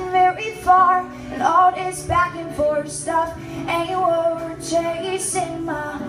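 A woman singing while playing an acoustic guitar, her voice moving in short sung phrases over the guitar's steady chords.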